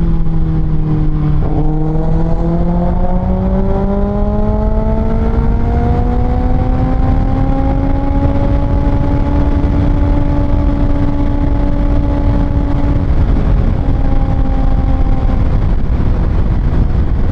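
Kawasaki ZX-6R's 636 cc inline-four with an Austin Racing exhaust, heard from the rider's seat on the move: the engine note climbs steadily for several seconds as the bike accelerates, holds, then dips slightly about thirteen seconds in. Constant wind and road rush underneath.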